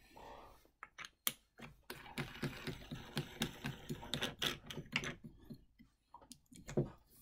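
Rapid light clicking and rattling as a plastic knob is spun onto a T-bolt fitted through a wooden handscrew clamp, with a few sharper knocks of the parts being handled.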